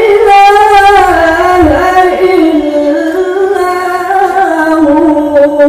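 A man reciting the Qur'an in the melodic tilawah style. His voice is high and carries long, ornamented held notes that step gradually lower in pitch through the phrase.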